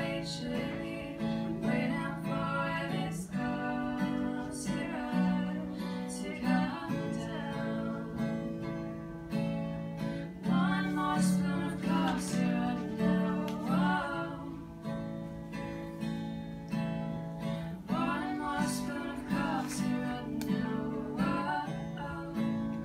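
Music played on a strummed acoustic guitar.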